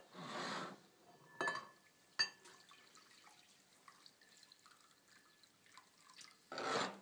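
Colored water poured from glass mason jars into bowls of Insta-Snow powder, a faint trickling with two sharp glass clinks about a second and a half and two seconds in, the second one ringing briefly.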